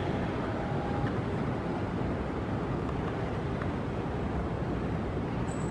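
Steady background rumble of a large airport terminal hall, with no distinct events standing out.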